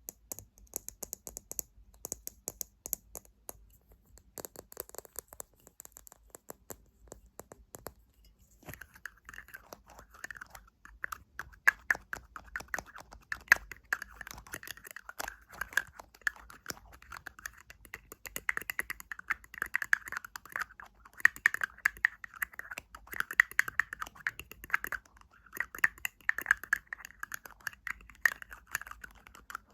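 Fingernails tapping rapidly on hard objects in a fast, continuous patter of clicks. About nine seconds in the tapping moves to a different object that gives a louder, more ringing click.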